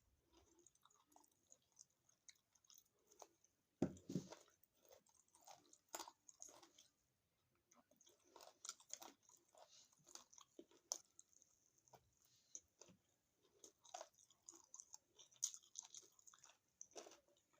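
A person chewing a mouthful of food, close to the microphone: many small mouth clicks with a louder bite about four seconds in and a brief pause around seven seconds. The meal is stuffed cabbage rolls and chicken.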